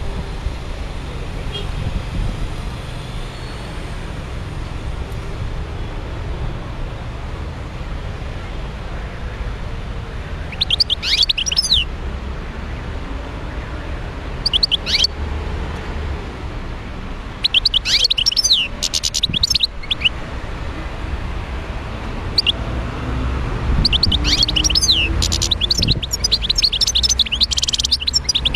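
Wild-caught European goldfinch singing: short bursts of quick, twittering, pitch-sliding notes start about ten seconds in and become a longer, denser run of song near the end. A low steady rumble sits underneath.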